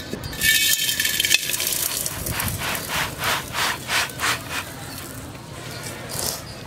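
Coarse sand poured into an iron kadai: a loud hiss as it pours, then rhythmic scraping pulses, about three a second, as the last of it is shaken and scraped out, and a brief soft rustle near the end as it is spread by hand. The sand bed serves as an oven substitute for baking the cake.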